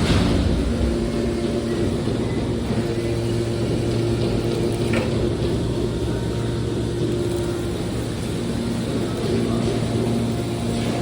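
Horizontal hydraulic metal baler running: a steady machine hum over a hiss of noise, with a sharp knock at the start.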